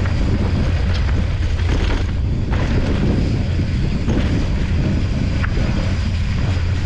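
Wind buffeting the microphone of a handlebar-mounted camera on a moving mountain bike, with the rumble of the tyres rolling over the dirt trail and a few sharp clicks.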